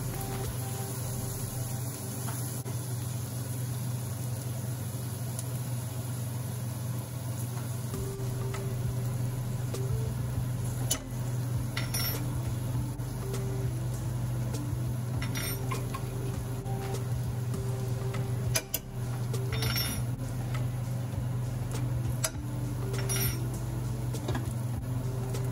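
Sliced onions sizzling in a stainless steel frying pan under a steady low hum, with a few short sharp clinks in the second half as spoonfuls of spice go into the pan.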